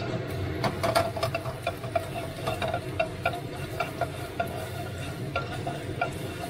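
Metal utensil stirring minced garlic in hot oil in a nonstick wok, with a quick run of light taps and scrapes against the pan over a steady low hum.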